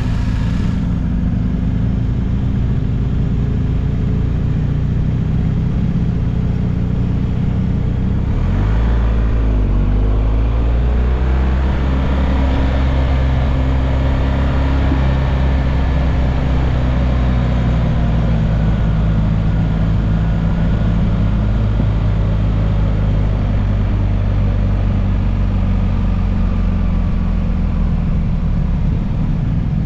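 Motorcycle engine running steadily on a mountain descent, under wind and road noise. About eight seconds in, the engine note dips and climbs again, as at a gear change.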